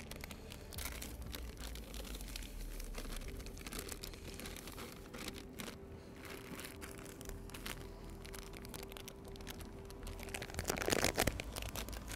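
Plastic bag of dry fishing groundbait crinkling and rustling as it is handled and emptied into a plastic bucket, with a louder burst of rustling near the end.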